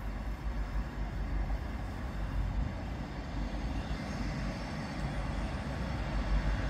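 Class 158 diesel multiple unit running slowly at the station platform: a steady low noise with no distinct events.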